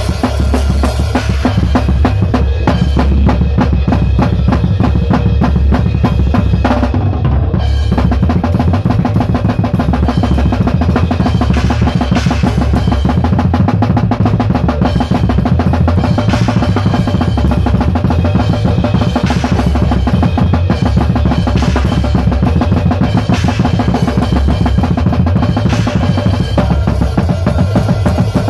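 Drum kit played fast: dense kick drum and snare hits under cymbal wash, the cymbals dropping out briefly about seven seconds in. A bass guitar plays sustained low notes underneath.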